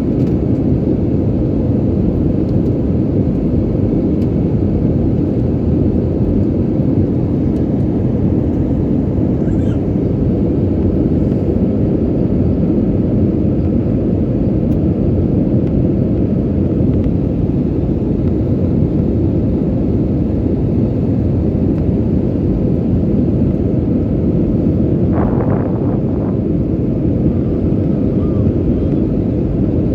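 Steady roar of airliner cabin noise in flight: engines and rushing air, low and unchanging in level.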